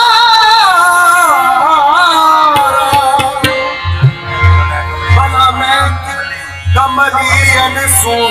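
Live qawwali through a sound system: a male lead singer holds a long wavering sung line over harmoniums, and from about four seconds in, steady low hand-drum beats join.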